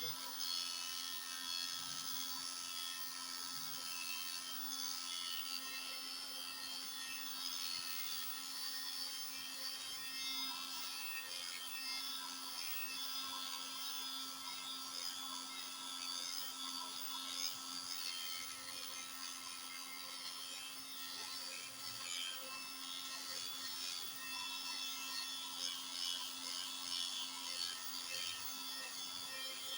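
Heat gun running steadily, its fan motor whirring with a constant hum and a hiss of blown air, heating faded, whitened motorcycle plastic to bring back its black colour.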